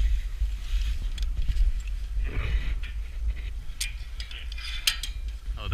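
Wind buffeting a helmet-mounted action-camera microphone, a steady low rumble, with scattered small clicks and knocks and a short breath about two seconds in.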